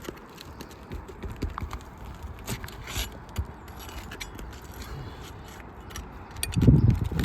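Flat steel pry bar working under asphalt roof shingles, giving scattered scrapes, clicks and light metallic clinks as the sealed shingles are pried loose. A louder dull thump near the end.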